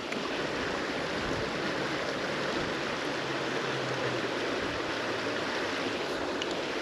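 Small creek flowing: a steady rush of running water.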